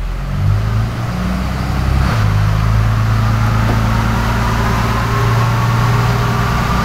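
Cummins 5.9L common-rail inline-six turbo diesel, fitted with an Industrial Injection PhatShaft 62 turbo, running on a chassis dyno ahead of a pull. The engine note steps up twice early on and then holds steady, while a faint whine slowly rises in pitch.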